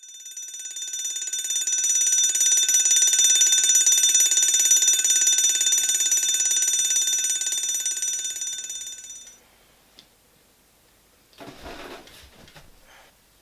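A wake-up alarm ringing: a rapid, high ringing that swells up over the first couple of seconds, holds steady and stops about nine seconds in. About two seconds later comes a short rustle of bedding as the duvet is thrown back.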